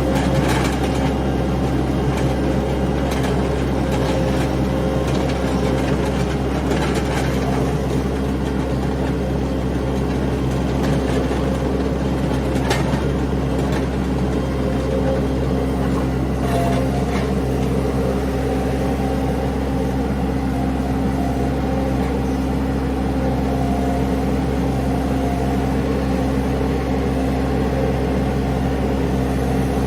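Mini skid steer's engine running at a steady speed, with a few light knocks partway through.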